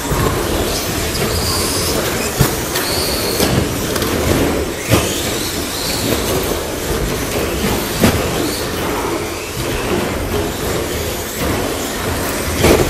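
Several electric short-course RC trucks racing on an indoor carpet track: the whine of their motors rising and falling over continuous tyre noise, with a few sharp knocks as cars land or hit the ramps.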